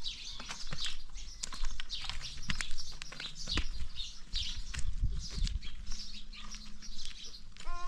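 Chickens chirping densely in quick, high peeps, with scattered knocks and handling noise.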